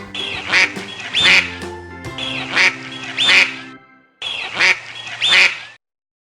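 Duck quacking, six quacks in three pairs, over a children's music tune; music and quacks cut off suddenly near the end.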